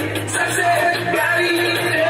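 Backing music for a dance performance, a song with singing over a steady bass line.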